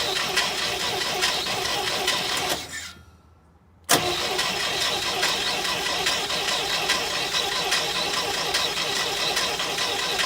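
1964 International Scout 80's four-cylinder engine being cranked over by the starter motor with the ignition coil disconnected, so it turns with an even rhythm without firing, to circulate fresh oil through the new filter. The cranking stops about two and a half seconds in, then starts again with a sharp click near four seconds.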